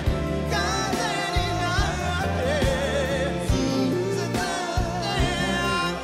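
A male vocal group singing a soul ballad live with a full band: a lead voice over other voices in harmony, with a steady drum beat underneath.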